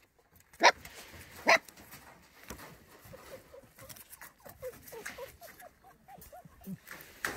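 Himalayan sheepdog puppy giving two short, sharp yaps about a second in, then a run of soft, rising-and-falling whimpers.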